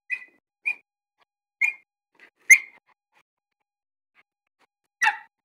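Puppy whimpering in short, high-pitched cries, five brief whines with a pause of about two seconds before the last one.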